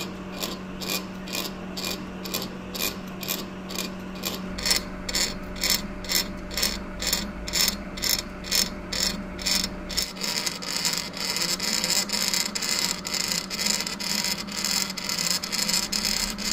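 Manual lathe running while a single-point tool cuts a thread on a brass bolt. A steady motor hum sits under a regular mechanical ticking of about three ticks a second. After about ten seconds the ticking quickens and a high scraping hiss of the cut comes in.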